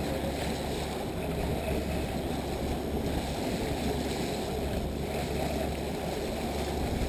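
Steady low drone of a charter fishing boat's engine running, mixed with the wash of wind and waves.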